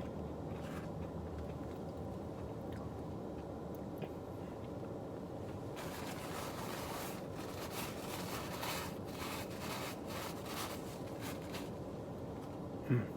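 Spoon scraping and digging in an ice cream cup while eating, a quick run of scrapes and crunches for several seconds over a steady low hum, with a brief low thump near the end.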